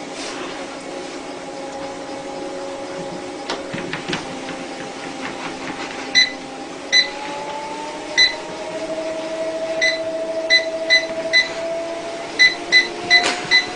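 Treadmill motor running with a steady whine whose pitch rises slowly as the belt speeds up. About a second into the second half, short electronic beeps from the control panel buttons start, about eleven in all, coming faster towards the end.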